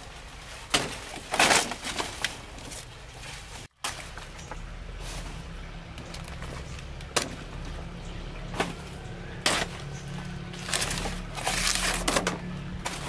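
Banana leaves rustling and snapping as they are cut and pulled from the plant by hand and knife, in a run of irregular sharp crackles.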